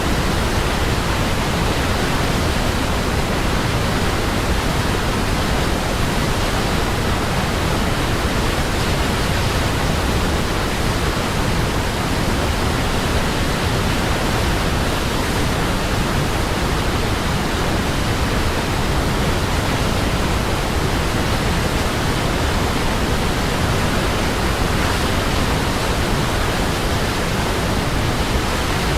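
Steady rush of a waterfall: an even, unbroken noise of falling water, heaviest in the low end.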